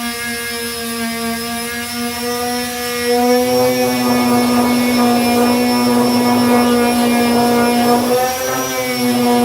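Electric sander fitted with a 240-grit disc, its motor running with a steady whine. From about three and a half seconds in, a rougher hiss joins as the disc works the body filler, and the pitch sags briefly near the end under load.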